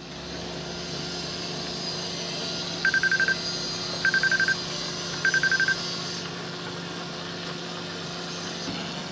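Three short bursts of rapid high-pitched beeps from a dozer's in-cab proximity-warning alarm, each a quick string of about six pips, over the steady hum of the dozer's engine running. The alarm is warning the operator of a pedestrian inside the warning zone around the machine.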